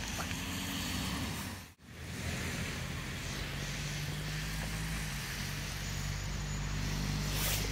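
Steady road traffic noise, with a low engine hum from about three seconds in and a brief drop-out just under two seconds in.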